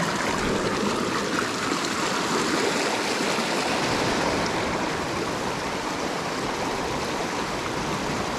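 A small, rocky mountain creek running over stones and through riffles, a steady rush of water.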